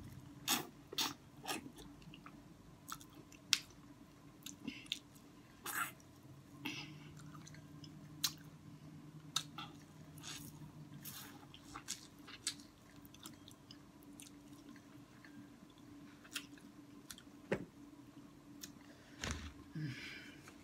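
Close-up chewing of a breaded fried pickle dipped in sauce: irregular crunchy bites and wet mouth sounds, a few sharp crunches standing out.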